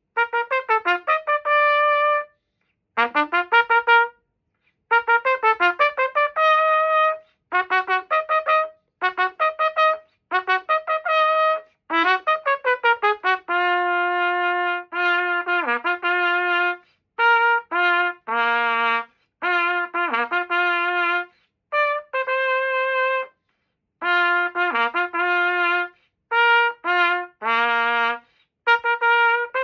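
Yamaha YTR-2330 B♭ trumpet played solo in short phrases of quick notes running up and down, some ending on held notes, with brief pauses between phrases.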